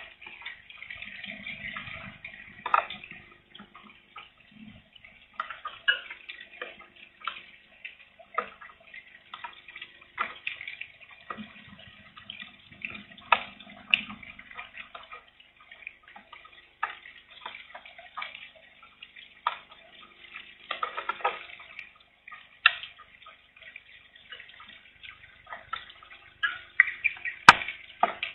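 Light rain falling, with scattered drops striking close by at an uneven pace over a faint hiss and a low rumble of wind now and then. A single sharp knock, the loudest sound, comes near the end.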